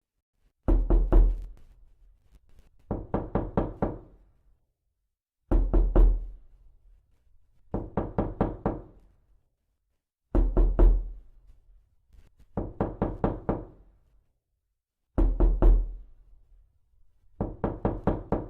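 Knocking in a looped pattern: a loud group of three knocks, then a quieter, quicker group of about five, with a new group every couple of seconds. The whole pattern repeats four times.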